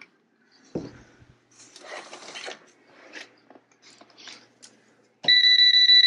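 Faint handling noises as a plug is pushed into a wall outlet and the cord is handled. About five seconds in, a non-contact voltage tester starts a loud, rapid high-pitched beeping against the cord, signalling that the newly wired outlet is live.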